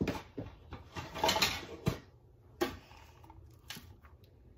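Rustling and clatter of belongings being rummaged through and handled, loudest about a second in, with a sharp knock just before two seconds and another short rustle a little later.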